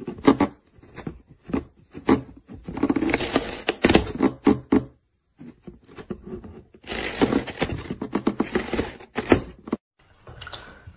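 Cat chewing and scraping at the edge of a cardboard box: irregular crunching, scraping and tearing sounds, with a brief pause about five seconds in.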